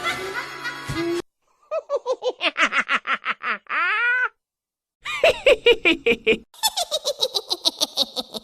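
A string of short laughter clips, each a rapid run of 'ha-ha-ha' pulses, separated by brief silences. The first clip ends in a drawn-out laugh.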